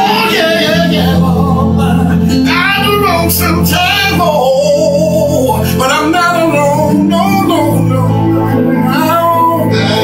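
A gospel song: a voice sings a gliding, ornamented melody over sustained low backing notes.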